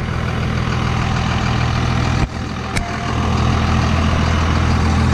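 An engine idling steadily, with a brief break a little over two seconds in and a short click just after.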